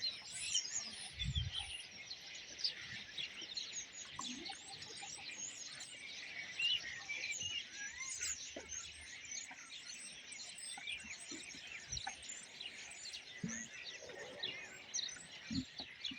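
A large flock of common starlings chattering together: a dense, unbroken mix of many short high chirps and whistles.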